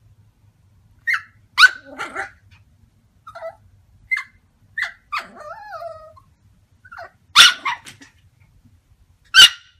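Yorkshire terrier barking: high, sharp barks at irregular intervals, the loudest near the start and near the end, with a few quieter yips and a whine that falls in pitch in the middle.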